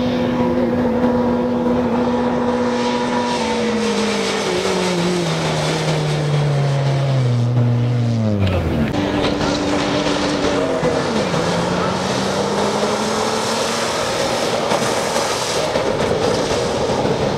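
Off-road rally 4x4 engines driving past at speed. One engine note holds steady, then drops in pitch over about five seconds and cuts off abruptly. A second engine then dips and climbs again as it accelerates, over a steady rushing noise.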